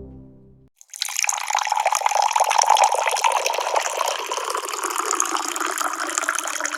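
Water being poured to fill a cup: a steady splashing pour that starts about a second in. Before it, the last notes of a music intro fade out.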